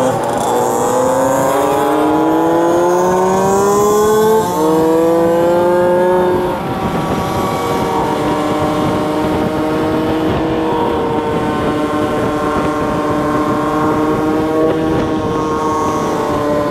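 Vintage two-stroke scooter engine heard from the rider's seat over wind rush. Its pitch climbs as it accelerates, dips briefly at a gear change about four seconds in, climbs again, then holds steady at cruising speed from about halfway through.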